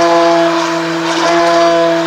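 Electric stick blender running at one steady speed, its motor humming on a constant pitch as it blends thick soap batter.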